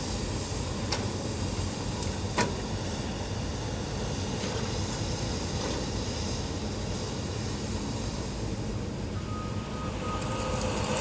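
Caterpillar 568 forest machine's diesel engine running steadily as the machine swings, with two sharp knocks about a second and two and a half seconds in.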